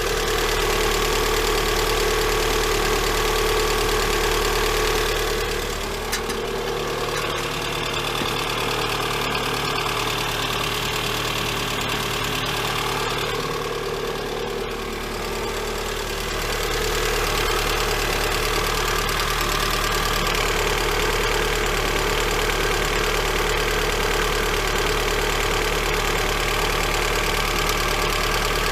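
Lada Granta's freshly overhauled VAZ-21126 1.6-litre 16-valve four-cylinder engine idling steadily, with the knock that the owner hears both cold and hot after the rebuild and cannot place.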